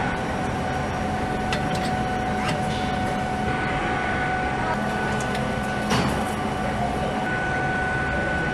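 Assembly-line machinery running with a steady hum and whine. Scattered sharp clicks and knocks come through it, the loudest about six seconds in.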